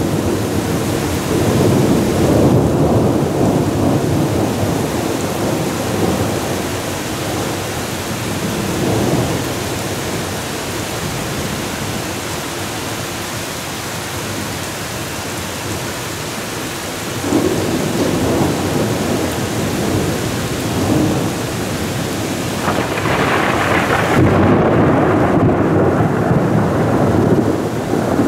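A thunderstorm: steady rain falls while thunder rolls in long low rumbles. The thunder swells at the start, again about two-thirds through, and longest near the end.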